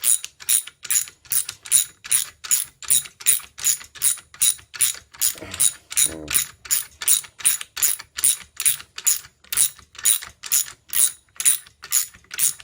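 Steady, evenly spaced clicking of a ratchet mechanism, about three clicks a second, as a threaded rod is turned by hand and screwed into a hole.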